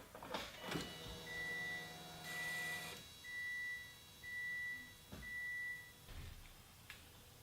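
Car's electronic warning chime beeping five times, about once a second, each beep a steady high tone, with a steady hum under the first two and a few clicks.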